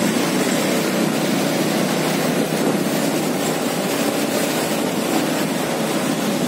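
Steady, even engine-like running noise with no clear changes.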